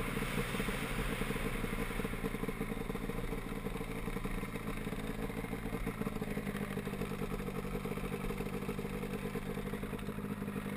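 Turbocharged snowmobile engine, an M1200 Twisted Turbo, running close to the hood-mounted camera as the sled slows, settling to a steady idle from about six seconds in.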